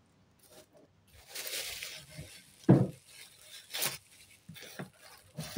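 Clear plastic bag rustling and crinkling as jewellery is handled inside and pulled out of it, with one short knock on the table about two and a half seconds in and a few light clicks.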